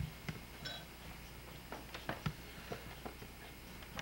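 Faint, irregularly spaced light clicks and taps, about a dozen in all, over a low steady hum.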